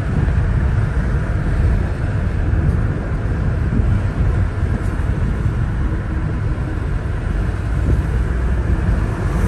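Steady low road and engine noise heard from inside a moving car's cabin.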